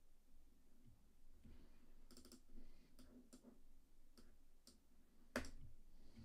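Faint, scattered clicks of a computer keyboard and mouse being worked at a desk, with a quick cluster about two seconds in and one louder click a little after five seconds.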